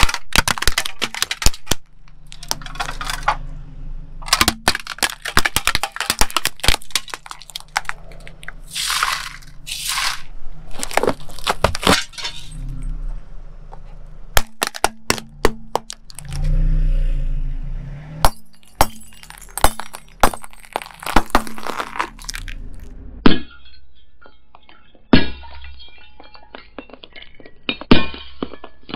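A car tyre slowly rolling over and crushing small plastic objects on concrete, with a long series of cracks, snaps and crunches. Near the end come a few loud sharp pops of coloured glass light bulbs bursting under the tyre, with glass tinkling.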